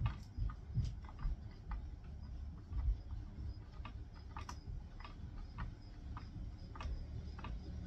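Small, sharp metal clicks of a wrench turning the terminal nuts on a winch control box, coming irregularly about two or three times a second, over a low rumble.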